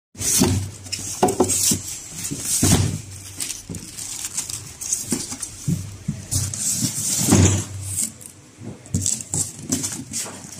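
Irregular rustling, scraping and knocking of packing work: a sliding gate opener motor being pushed into polystyrene foam inserts, then a cardboard box being handled and opened.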